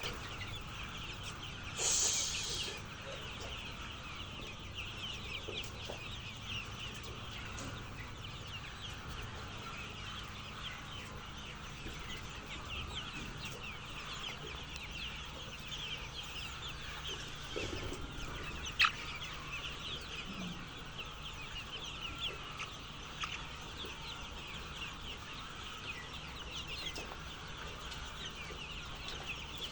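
A flock of chickens calling and clucking, many short overlapping calls in a steady din. A brief louder burst of noise comes about two seconds in, and a single sharp click near the end of the second third.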